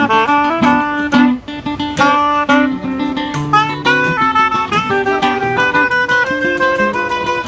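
Choro played by a clarinet, an acoustic guitar and a pandeiro: the clarinet carries a quick melody over the guitar's accompaniment and a steady pandeiro beat.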